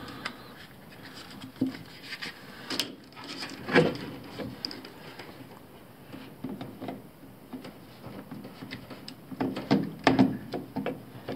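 Plastic clicks, knocks and rubbing as a replacement washer drain pump is pushed and twisted into its plastic housing to test the fit, with scattered single knocks and a busier run of knocks near the end.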